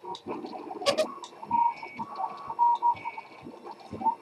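RepRap 3D printer's stepper motors moving the print head, giving short whirring notes that jump in pitch as the nozzle changes direction. There is a sharp click about a second in.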